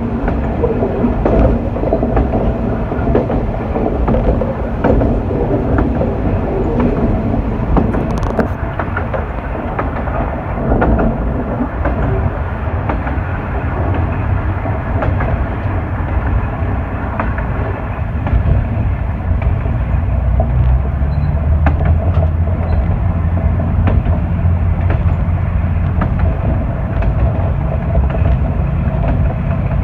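Diesel railcar running along the line, heard from the front of the cab: a steady low rumble with wheels clicking over the rail joints. A steady low engine hum comes in more strongly about two-thirds of the way through.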